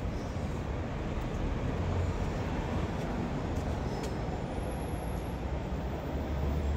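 Steady road traffic noise of a busy city street, with a continuous low rumble.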